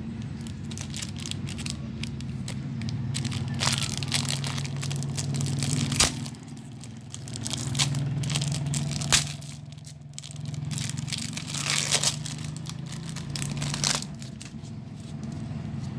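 Clear plastic wrapping crinkling and tearing as a phone case is pulled out of its sleeve, with a couple of sharp snaps in the middle. A low steady hum runs underneath.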